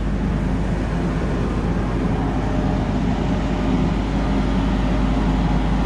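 Nilgiri Mountain Railway steam locomotive standing at the platform, a steady low rumble and hiss without any break.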